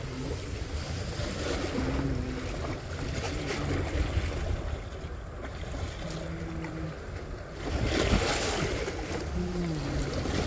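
Sea waves washing and splashing against shoreline rocks, with wind buffeting the microphone; a louder surge of water comes about eight seconds in.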